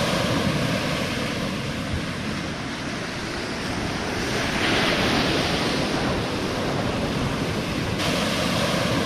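Ocean shore break surging and hissing, with wind noise on the microphone; the surf swells louder and hissier about halfway through.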